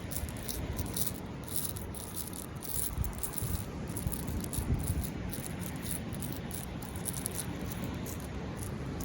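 Agate stones rattling inside a plastic sensory bottle as it is shaken. The clatter of many small clicks runs on continuously.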